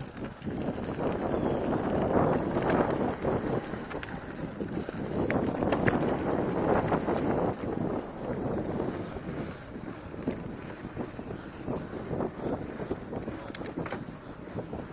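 Mountain bike rolling fast over a dirt singletrack trail: tyre rumble with a constant clatter of quick knocks and rattles from the bike over the rough ground, and wind buffeting the microphone. It eases off a little about halfway through.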